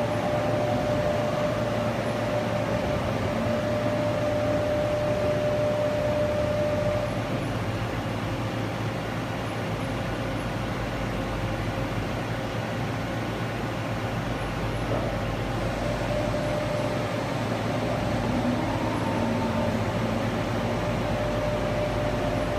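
MAG VTC-1600 CNC vertical turning center moving its ram and saddle along the cross rail under power. A steady drive whine sits over the machine's hum. The whine stops about seven seconds in and returns about two-thirds of the way through, with short rising and falling tones as the axis speeds up and slows.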